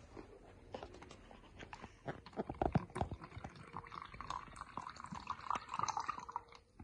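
Liquid poured from a stainless-steel jug into a plastic cup, in uneven trickles and splashes that get busier partway through and stop just before the end.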